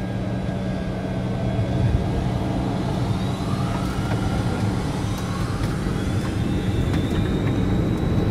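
Flight-deck noise of a DC-9-14's Pratt & Whitney JT8D turbofan engines: a steady low rumble with a turbine whine that starts rising in pitch about three seconds in and levels off near the end, as thrust is increased for the takeoff run.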